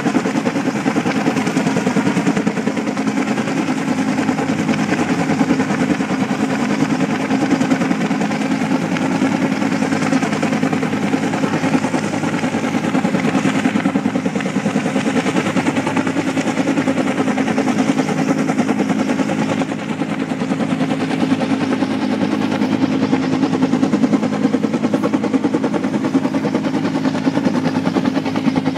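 An engine running steadily with a fast, even pulsing beat over a constant hum.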